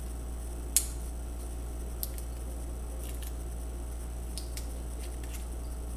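Small sharp clicks and ticks of hands working the laptop's LCD cable connector and its tape: one distinct click a little under a second in, a softer one about two seconds in, then a few faint ticks, over a steady low hum.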